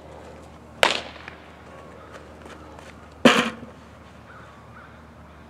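Two sharp smacks of a softball, about two and a half seconds apart, the second one louder.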